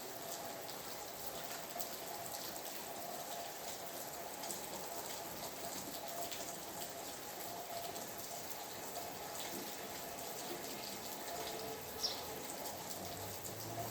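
Steady rain falling, with many individual drops ticking and dripping on surfaces. One sharper, louder tick comes near the end.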